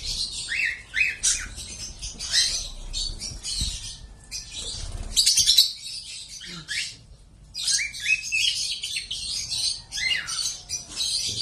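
Lovebirds chirping and squawking in a dense run of short, high calls, falling briefly quiet about seven seconds in.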